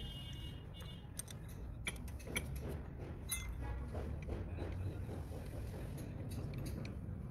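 Scattered light metallic clicks and clinks of parts being handled and fitted at the main-shaft end of a ZF bus gearbox, over a steady low hum.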